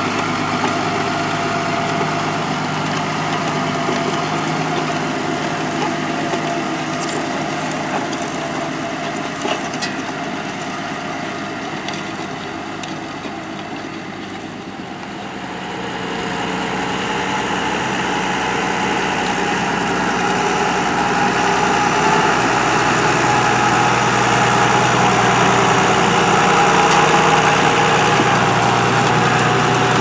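New Holland T6.180 tractor's six-cylinder diesel engine running steadily under load while pulling a reversible plough through the soil, dipping slightly about halfway and louder through the second half.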